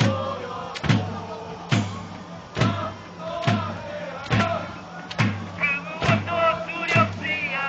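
Football supporters singing a chant together, with a big drum struck on a steady beat a little under once a second.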